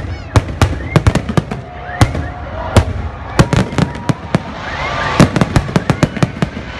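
Aerial firework shells bursting overhead in a rapid, irregular string of sharp bangs, at times several a second, with a hiss swelling about five seconds in.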